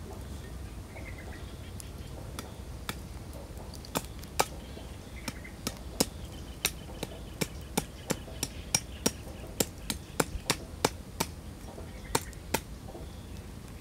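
Meat cleaver chopping at a thin wooden stick: a run of sharp, irregular knocks, coming fastest through the middle stretch.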